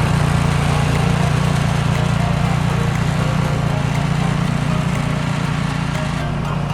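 An engine running steadily: an even, low drone with no changes in speed.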